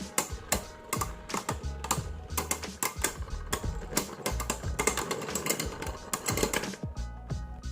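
Rapid, irregular clicks and taps of hard plastic Beyblade parts being handled, with music in the background.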